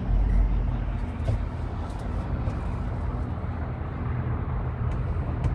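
Steady low rumble and hum inside a moving cable car cabin clamped to its haul cable, with a few faint clicks.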